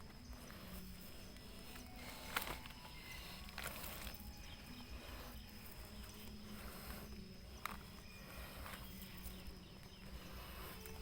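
Faint rustling and crackling of dry forest leaf litter under footsteps, with two sharp snaps, one about two seconds in and one near eight seconds, and a faint steady high whine behind it.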